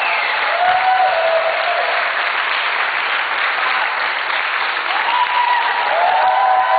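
Crowd applauding, with a few voices cheering and calling out over the clapping.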